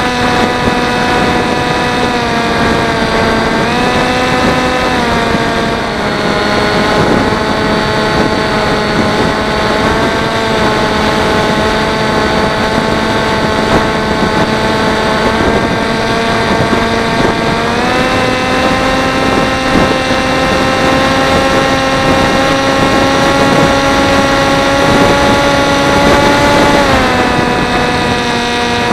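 Electric motor and propeller of a Teksumo flying wing, heard from its onboard camera over a rush of wind noise. It holds a steady pitch that rises briefly about four seconds in, then rises again for about ten seconds from around eighteen seconds in before dropping back near the end as the throttle changes.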